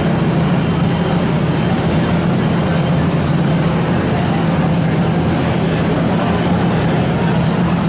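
Riding lawn mower engine running loud and steady in a lawn mower pulling contest, a continuous drone with no breaks.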